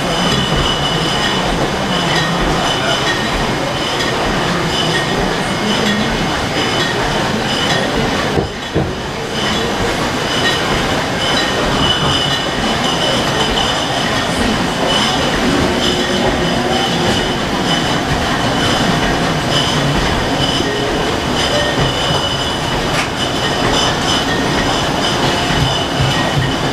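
Wine bottling line running: glass bottles clattering along the conveyor through the filling and labelling machines, a continuous mechanical rattle with a steady high whine over it. The clatter drops briefly about eight and a half seconds in.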